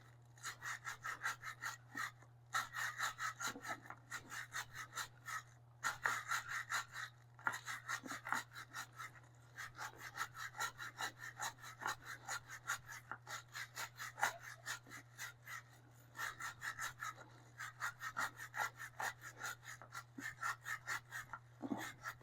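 Rapid back-and-forth scrubbing strokes on a 2005 Yamaha R6's motorcycle drive chain during cleaning, about three strokes a second with a few short pauses.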